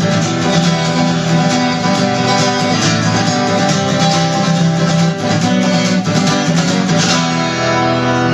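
Guitar strummed in a steady rhythm with no voice. Near the end a chord is left to ring.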